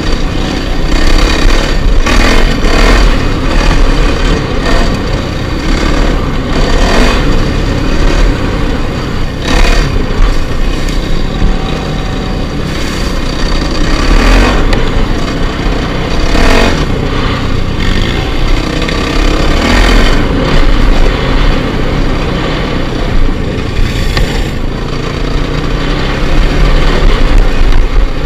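Dirt bike's single-cylinder four-stroke engine revving up and easing off again and again as it is ridden over a rough trail, heard from on the bike itself, with several short loud knocks along the way.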